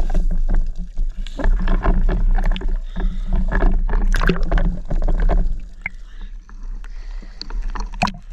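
Water splashing and sloshing close to the microphone in irregular bursts over a steady low rumble, louder for the first five seconds and easing off after.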